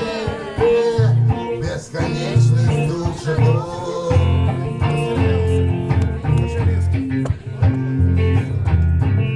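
Live band music led by guitar over a bass line that moves every half second or so.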